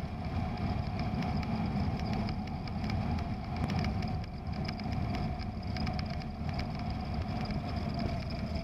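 Cessna 172's piston engine running steadily at throttled-back power, with the propeller and airflow noise heard inside the cabin as a steady low drone, the engine pulled back to idle for the approach.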